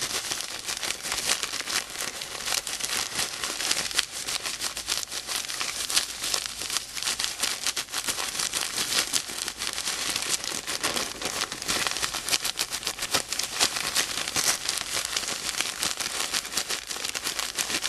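A bag of salt being shaken steadily with a small plastic model-kit part inside, the salt grains rattling and crackling against the part and the bag to scuff its surface.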